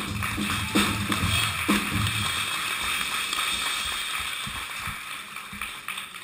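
Live drum kit playing its last few beats, then stopping about two seconds in, leaving an even hissing wash that slowly fades away.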